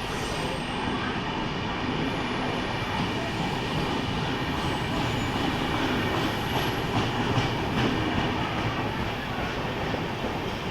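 A train running past on the tracks, a steady rumble of wheels on rail with some clatter.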